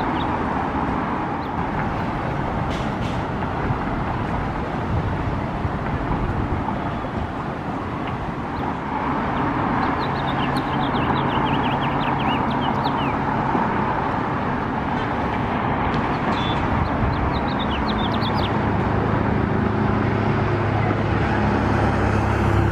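Steady outdoor traffic rumble. Runs of quick high bird chirps come in about ten seconds in and again around sixteen seconds. A low car-engine hum grows near the end.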